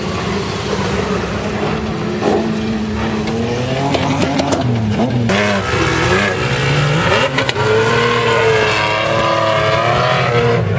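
4x4 SUV engines revving hard as the trucks slide through deep sand, the engine pitch rising and falling over and over, over a rushing hiss of spraying sand. The revving grows stronger in the second half.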